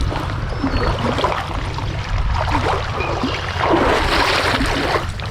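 Stream water rushing and splashing, with a stronger surge of splashing about four seconds in, over a low rumble.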